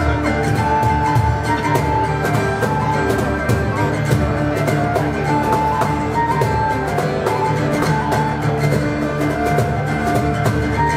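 Instrumental music: a held, sustained melody line over a steady beat.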